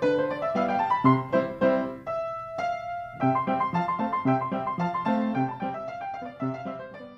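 Piano music in silent-film style: a run of quick notes, a note held for about a second two seconds in, then more quick notes, fading near the end.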